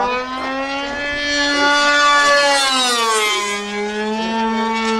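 R/C model airplane's engine in a fast fly-by. Its pitch rises slightly as it grows loudest about two to three seconds in, then drops sharply just after three seconds as the plane passes and settles lower.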